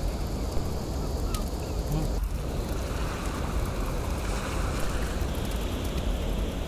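Wind buffeting the microphone over the steady wash of surf, with one light click about a second and a half in.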